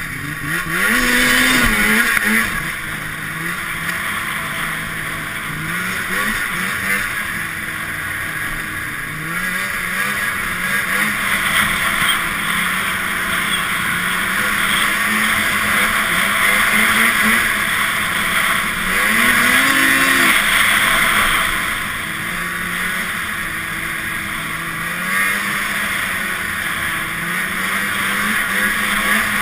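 Arctic Cat Snopro two-stroke snowmobile engine running under way, its pitch rising and falling with the throttle several times. It is heard over a steady rushing noise.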